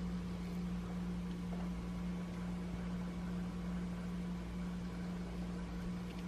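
Steady low hum of a running kitchen appliance motor, with an even hiss underneath and no change in level.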